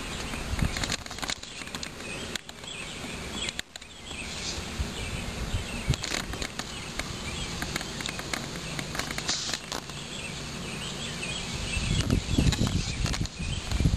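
Outdoor ambience: a steady hiss with scattered high chirping in the background, and low rumbling on the microphone that grows stronger near the end.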